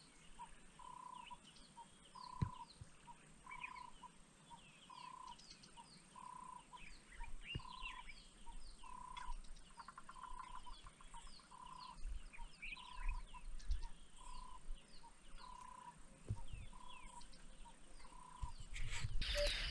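Wild birds calling in the bush: many short, high chirps and whistles, with one bird repeating a single piping note about once a second. About half-way through comes a brief rapid rattle.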